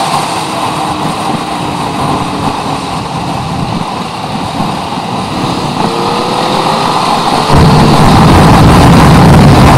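Motorcycle riding, recorded on a chest-mounted camera: the engine runs under a rush of wind on the microphone. The low wind rumble eases off at the start, leaving faint engine tones that rise in pitch, then comes back loud and sudden about seven and a half seconds in.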